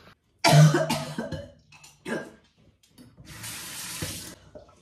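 A woman coughs loudly, with a shorter cough about a second and a half later, a symptom of her COVID infection. Then a washbasin tap runs for about a second.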